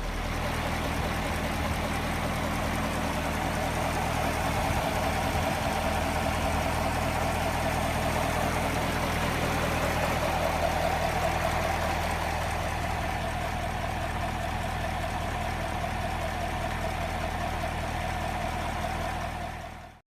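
Chevrolet Camaro SS's V8 engine idling with a steady, strong rumble; the sound stops shortly before the end.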